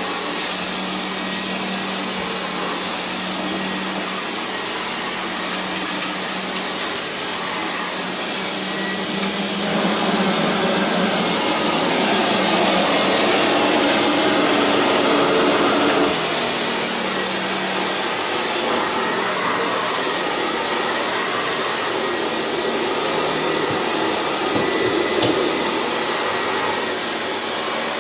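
Sanitaire upright vacuum cleaner with a 5-amp motor running steadily over carpet. Its whine rises in pitch and gets louder for several seconds in the middle, then drops back.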